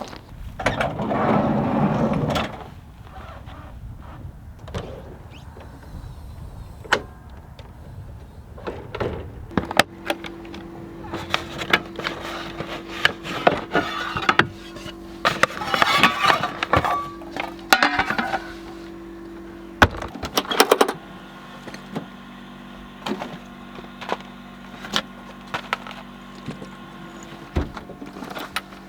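Background music with steady held tones, over scattered sharp clicks and knocks and a brief loud rustling burst near the start.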